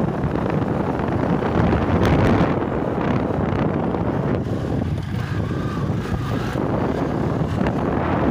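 Wind rushing steadily over the microphone of a moving motorcycle, with the motorcycle's engine running under it.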